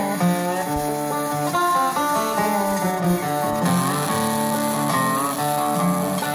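Background music: an instrumental with plucked guitar notes.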